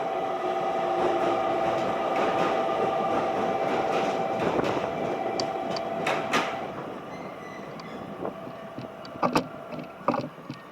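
A train moving along the station tracks: a steady whine over running noise that fades after about six seconds, then a few sharp clicks near the end.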